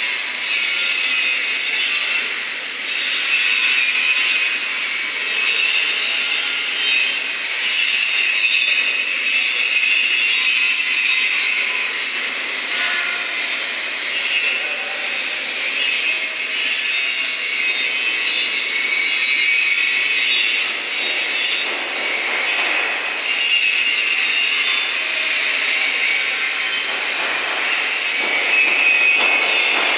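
Loud, steady, harsh workshop noise: a rasping hiss that dips briefly now and then.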